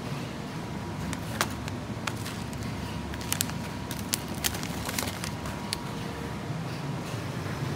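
Grocery store room tone: a steady low hum with a faint steady tone above it, and a scattered run of short sharp clicks from about a second and a half in to about six seconds in.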